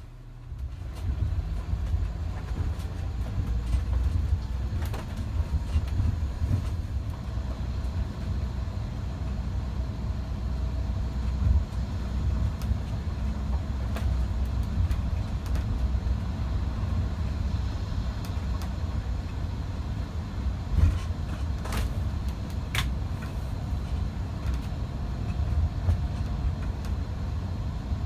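Motorhome driving on the road: a steady low rumble of engine and road noise, with a few short sharp clicks or knocks along the way.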